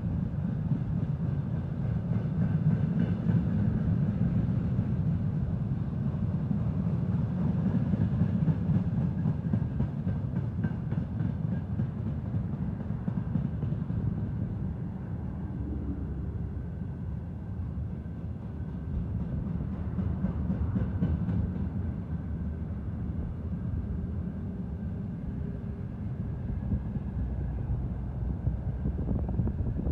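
Freight train of railway tank cars rolling past, a steady low rumble of steel wheels on the rails.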